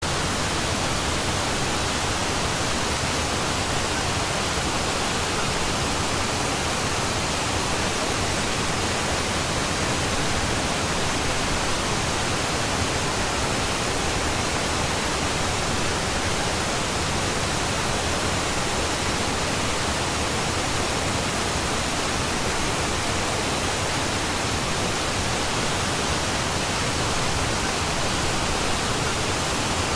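Steady pink noise: an even hiss with no tones and no change in level, the masking layer of a subliminal audio track.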